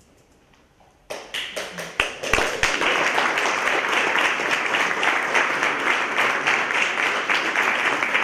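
Audience applauding, starting suddenly about a second in and continuing steadily.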